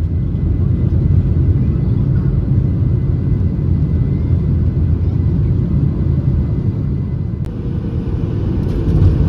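Jet airliner cabin noise: the engines and airflow make a loud, steady low rumble, with a faint steady high whine that cuts off with a click about seven and a half seconds in.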